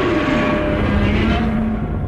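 Godzilla Terrestris roar sound effect: a loud, raspy monster cry whose pitch slides down in the first half-second and then holds, starting to fade near the end.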